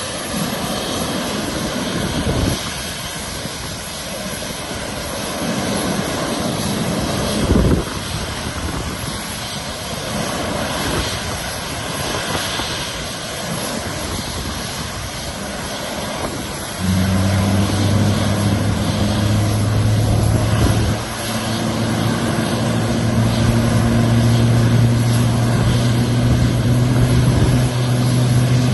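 Airbus A350-900's Rolls-Royce Trent XWB jet engines running on the ground, a steady loud rush of engine noise. About 17 seconds in, a steady low hum joins it and the sound grows louder.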